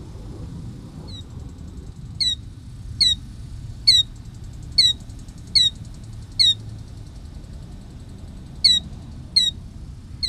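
Killdeer calling: about ten short, sharp notes, each sliding down in pitch, repeated a little under a second apart with one pause of about two seconds before the last few.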